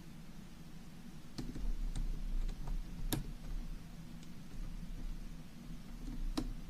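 Small, sharp clicks and taps of a screwdriver and tiny screws against the laptop's screen bracket as the screws are put back in the sides, about five over several seconds, the loudest a little after three seconds in and again near the end. A low steady hum runs beneath.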